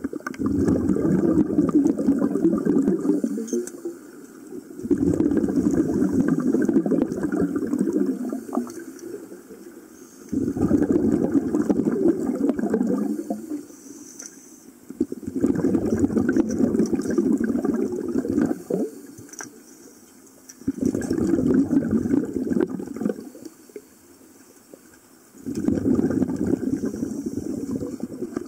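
Scuba diver breathing underwater through a regulator: six long gurgling bursts of exhaust bubbles, one about every five seconds, with quieter gaps between.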